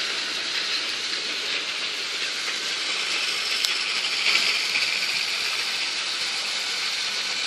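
Battery-powered Thomas & Friends Trackmaster toy trains running on plastic track: a steady hiss-like whir of their small motors and wheels.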